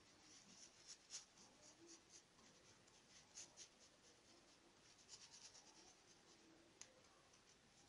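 Faint, irregular scratching and dabbing of a small paintbrush working fabric paint through a plastic stencil onto a cotton towel, in short clusters of strokes with one sharper tap near the end.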